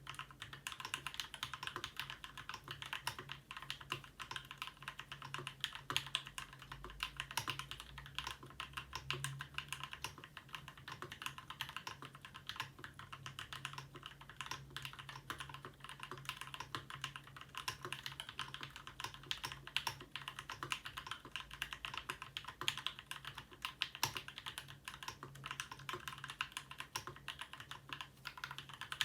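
Continuous fast typing on a 60% custom mechanical keyboard: a Ramaworks M60-A seq2 with an internal dampener, Gateron Ink Black linear switches lubed with Krytox 205g0 and filmed, and GMK9009 keycaps. It makes a steady stream of dense keystroke clicks and clacks after modding.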